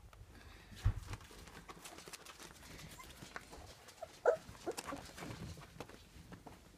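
Puppies making short, high yips and little growls while one chews on a wooden stick, with scattered clicks and scuffles and a thump about a second in.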